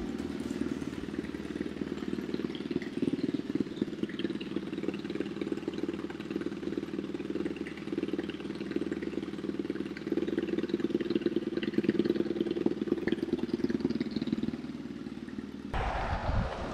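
2006 Triumph Thruxton's air-cooled parallel-twin engine running steadily at idle through a 2-into-1 exhaust. About a second before the end it cuts to wind buffeting the microphone.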